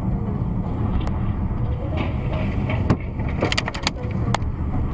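Road and engine noise of a moving car as heard from inside the cabin, a steady low rumble. There is a knock about three seconds in and a quick run of sharp clicks just after it.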